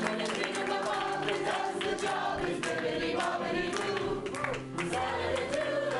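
Pantomime cast singing together as a choir, with keyboard accompaniment holding steady chords and sharp claps or beats running through it.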